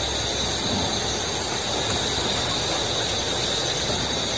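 Steady, high-pitched chorus of night insects over a constant hiss.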